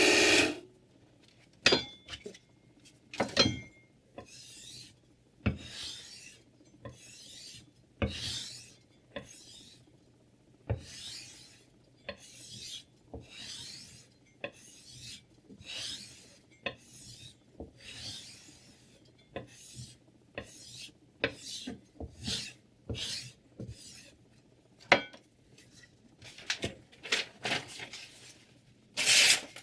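The mini grinder's motor cuts off right at the start. After that, a steel knife blade scrapes in short repeated hissing strokes, about one a second, each a brief rasp.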